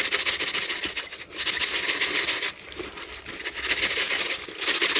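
A bristle brush scrubbing a wet, soapy backpack in rapid back-and-forth strokes. The scrubbing comes in several runs with brief breaks, one about a second in and a longer one near the middle.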